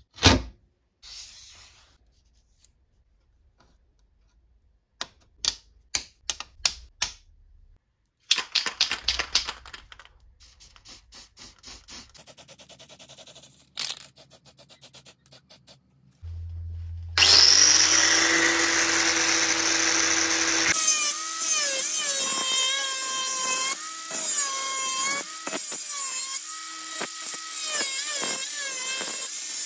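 A steel circular saw blade knocks as it is set down, followed by scattered clicks and a run of short hisses. Then an angle grinder with a cut-off disc starts with a high whine and spins freely for a few seconds before cutting into the saw blade's steel, its pitch dipping and wobbling under the load of the cut.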